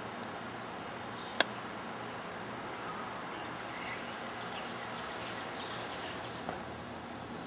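Steady outdoor background hiss with faint high chirps through the middle, broken by one sharp click about a second and a half in and a softer click near the end.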